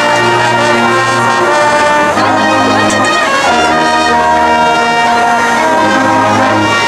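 Marching band brass playing loud sustained chords, with trumpets on top and trombones and low brass underneath, shifting to a new chord every second or two.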